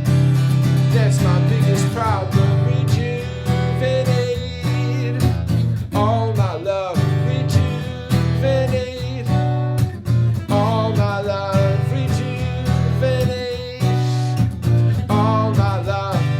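Martin GPCPA4 acoustic guitar: a looped strummed chord backing with a single-note lead improvised over it, some notes bending in pitch.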